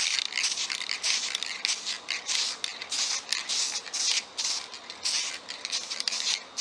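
Aerosol can of spray polyurethane hissing in a quick series of short sprays, laying down a light top coat.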